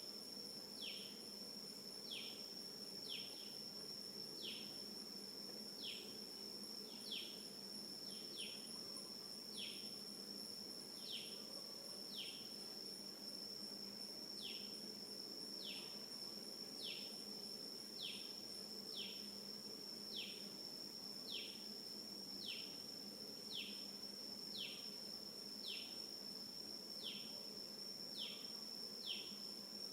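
Insects calling: a steady high-pitched drone, with a short falling chirp repeating about once a second throughout.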